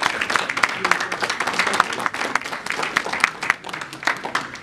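Audience applauding: many hands clapping in a dense, irregular patter that eases off a little toward the end.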